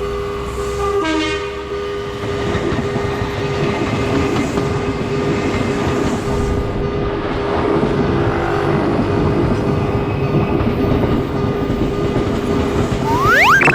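Train passing over a railroad crossing, wheels clacking and getting louder, while the crossing's warning bell rings steadily. A short rising whistle-like tone sounds near the end.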